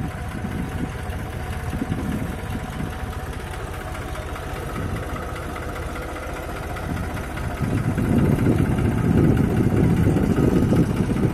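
New Holland 3630 tractor's diesel engine running steadily as it drives through floodwater, growing louder about eight seconds in as it comes close.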